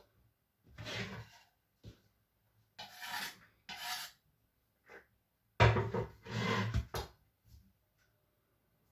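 A knife scraping chopped coltsfoot over a cutting board in several short strokes, the loudest starting sharply about five and a half seconds in.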